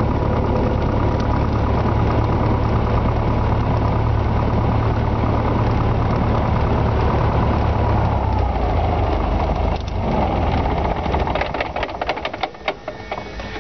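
Cessna 120's engine running at idle while taxiing, then shut down: it winds down about eight to ten seconds in and stops, followed by a run of sharp clicks near the end.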